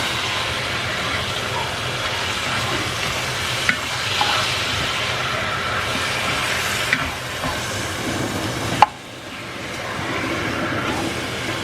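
Chicken pieces sizzling in hot oil in a pan as they are stirred, with a utensil clicking against the pan a few times. A sharp knock about nine seconds in, after which the sizzle briefly drops and then builds again.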